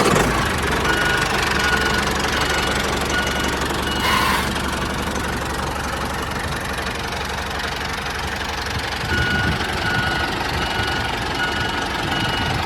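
An engine running steadily with a knocking chug, typical of a tractor engine sound. Faint short beeps repeat at an even pace near the start and again in the second half.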